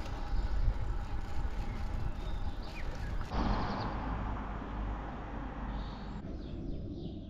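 Outdoor ambience: low rumbling wind noise on the microphone, with a few faint bird chirps. The sound changes abruptly about three seconds in and again near six seconds.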